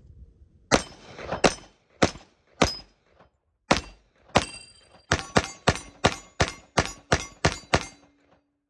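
FN FNX-45 Tactical .45 ACP pistol emptying a 15-round magazine of 230-grain FMJ: six shots about half a second to a second apart, then a fast string of about nine in under three seconds. The pistol cycles every round without a jam.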